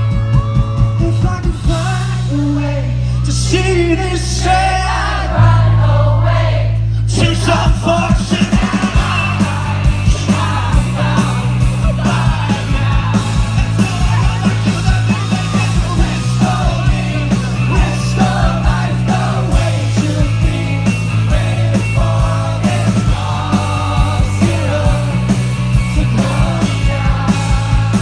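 Live rock band playing a song: a drum kit keeping a steady beat under a bass line that moves from note to note, with a man singing over it.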